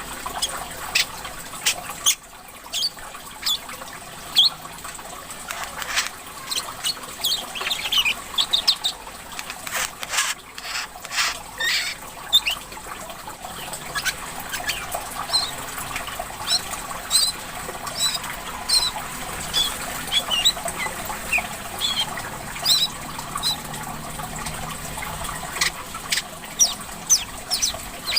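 Many short, sharp, high chirps from a small caged songbird, the kind bird keepers call korlap or wiceh. They come in irregular rapid runs over a steady trickle of running water.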